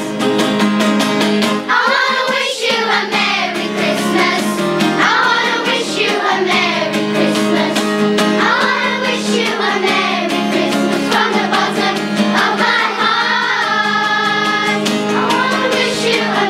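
Children's choir singing a Christmas carol together, without a break.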